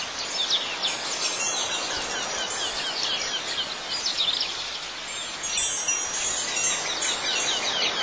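Outdoor nature ambience: many small birds chirping in quick falling notes, with wind chimes ringing high tones, over a steady background hiss.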